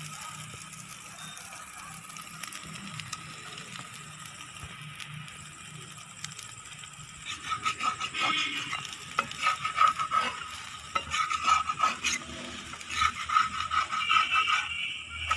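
Mudakathan dosa cooking on a hot pan: a steady sizzle, then from about halfway in a run of quick, irregular scrapes and knocks that grow louder near the end.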